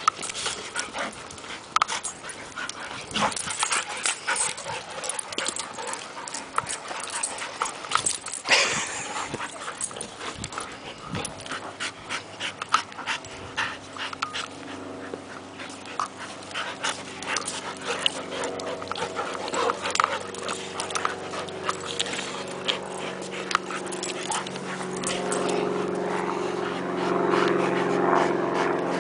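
Two dogs, a Rottweiler mix and a fluffy grey dog, play-fighting: a fast, irregular run of sharp clicks, scuffles and small vocal noises as they wrestle. A steady low hum swells in over the last few seconds.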